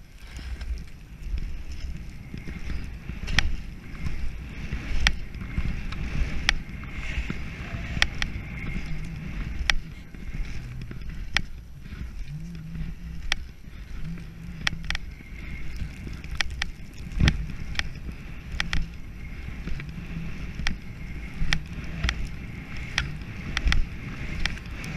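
Head alpine skis sliding and carving down a groomed slope: a steady scraping hiss over a low rumble, with scattered sharp clicks throughout.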